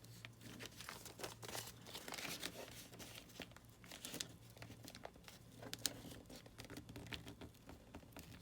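Paper rustling and crinkling in the hands as a folded sheet is handled, adjusted and turned over, in short scattered crackles.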